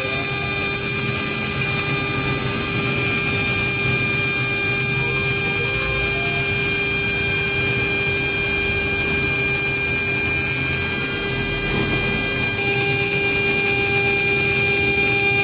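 A micro CNC mill's spindle runs steadily while a small end mill cuts aluminium, giving a whine of several steady tones over the cutting noise. The tones shift slightly about three-quarters of the way through.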